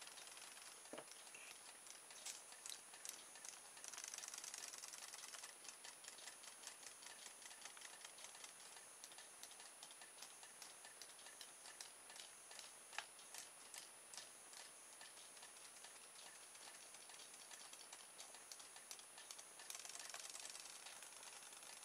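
Faint, rapid ticking of a RoboFish robot toy fish's small motor and tail drive as it swims under power in a bowl of water, with two short spells of louder hiss, about four seconds in and near the end.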